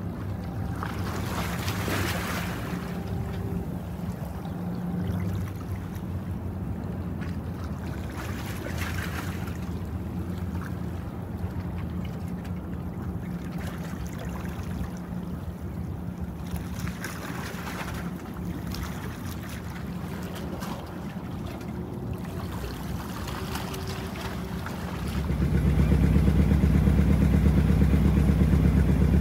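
A boat's engine running steadily with a low hum, and rushing noise swelling up a few times over it. About 25 seconds in the engine becomes much louder.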